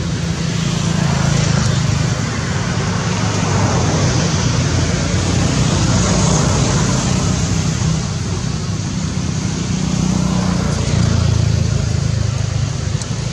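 Steady motor-vehicle traffic noise, with a continuous low engine hum under a hiss of passing traffic.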